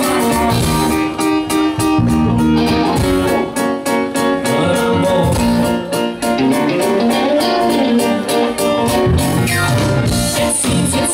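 Live rock band playing, with electric guitar to the fore over bass guitar and a drum kit keeping a steady beat.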